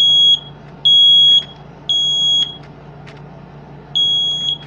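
Family Gard FG200 smoke alarm sounding in test: loud, high-pitched beeps about half a second long in the temporal-three pattern, three beeps, a pause, then the next set of three starting. The alarm's horn is covered with tape.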